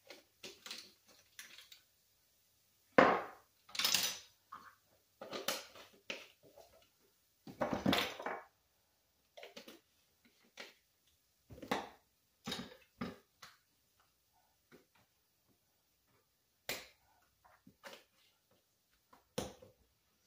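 Kitchen handling noises: irregular short knocks, clatter and scrapes of spice jars, lids and measuring spoons being picked up and set down on a counter and cutting board, the loudest about three seconds in.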